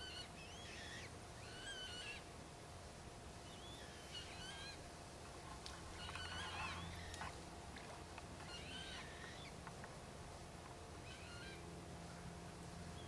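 Faint wild bird calls: short chirping phrases repeated every second or two, over a faint steady hum.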